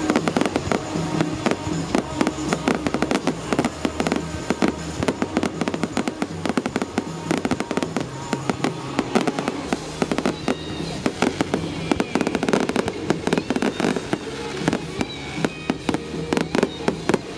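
Fireworks display in full salvo: a rapid, dense run of cracks and bangs from aerial shells and comets bursting, many a second, with music playing underneath.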